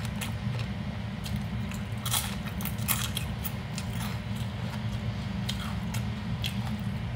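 Close-up crunching and chewing of a crisp gỏi tiến vua salad (rau tiến vua stems, carrot and crisp coconut) eaten with a cracker, in irregular crackly bites, over a steady low hum.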